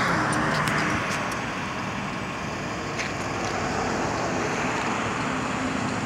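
Street traffic noise, a little louder at the start and then easing to a steady hum.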